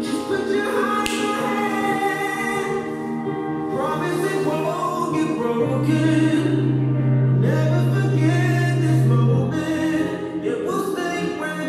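A recorded song with singing voices playing from a portable stereo, over long held bass notes.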